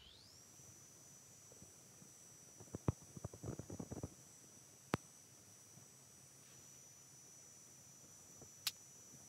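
Mostly quiet: light clicks and taps from handling a short ice-fishing rod and spinning reel, a short run of them about three seconds in, then single sharp clicks about five seconds in and near the end. A faint steady high whine lies underneath.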